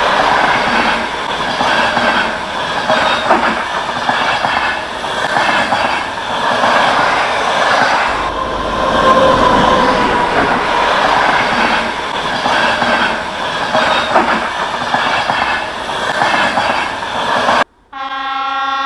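Train running on the rails with a dense clatter and faint squealing wheel tones. Near the end the running noise cuts off abruptly, and a steady horn tone with several notes starts.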